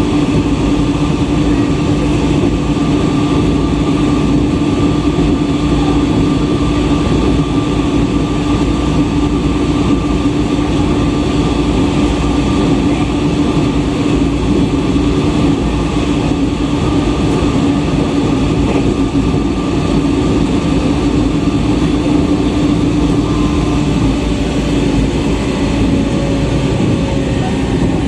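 Running noise inside a JR East E127 series electric multiple unit at speed: steady wheel-on-rail rumble with an even electric motor hum.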